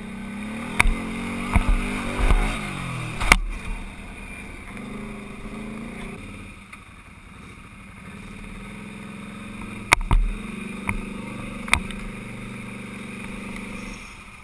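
Quad ATV engine running and revving up and down, with several sharp knocks from riding over rough ground.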